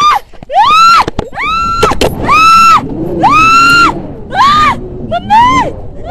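A woman screaming in fright, about seven long high-pitched screams one after another, each rising, held, then falling away, as a tandem paraglider takes off with her.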